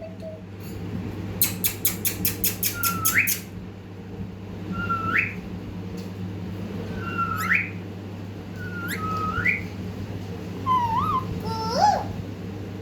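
Pet parrot whistling: a quick run of about ten sharp clicks, then a series of short whistles that each dip and then sweep steeply upward, ending with a couple of wavering whistles.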